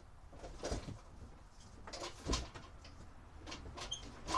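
Scattered knocks and rustles of handling, the loudest about two seconds in, with a brief high squeak near the end.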